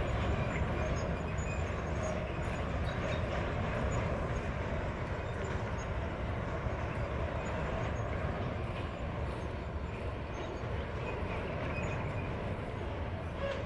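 Freight train wagons rolling slowly away along the track, a steady rumble that fades a little toward the end.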